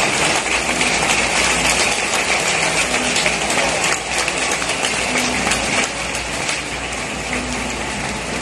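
Large stadium crowd applauding: a dense, steady patter of many hands clapping, easing off slightly after about six seconds.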